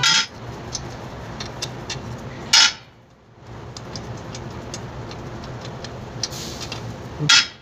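Hand tools working on a car's rear wheel hub: light metallic ticking throughout, with three sharper metal clinks, one at the start, one between two and three seconds in, and one near the end.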